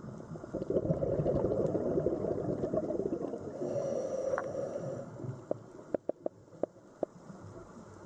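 Underwater ambience: a low rushing, burbling noise for about five seconds, then a handful of sharp clicks a little over halfway through.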